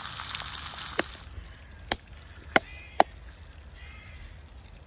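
Frying sizzle that stops abruptly a little over a second in, along with four sharp chopping blows at uneven intervals, the last two loudest.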